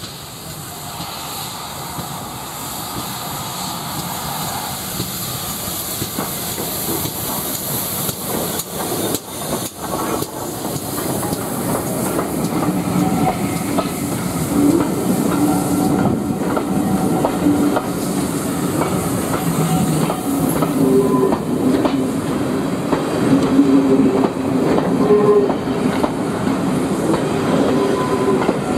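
A steam-hauled passenger train approaches and passes close by, growing louder throughout. At first a steam hiss carries over the approaching locomotive. From about halfway on, the coaches roll past with a steady clickety-clack of wheels over the rail joints and some ringing, squealing wheel tones.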